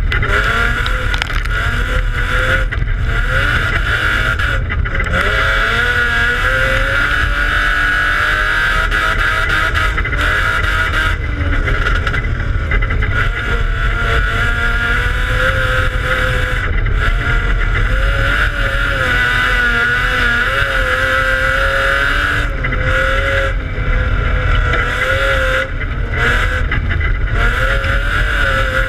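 The engine of a stripped-out dirt-track race car, heard from inside its own cabin, running loud and hard, its pitch rising and falling repeatedly as the driver works the throttle.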